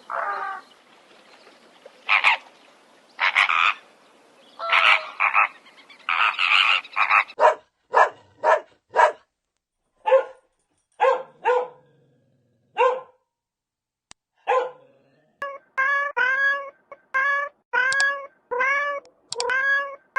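Animal calls: a series of short, harsh calls, then many short pitched calls that come faster until they repeat about twice a second.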